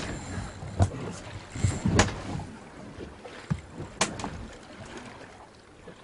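Choppy sea water slapping against a small boat's hull, with wind noise on the microphone and a few sharp knocks about one, two and four seconds in.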